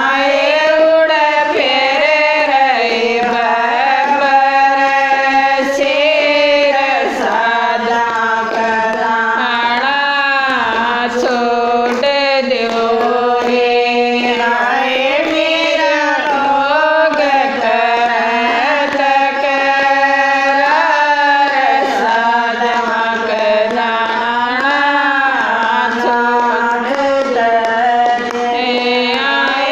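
Women singing a Haryanvi devotional bhajan, one continuous melodic line with long held notes that bend up and down.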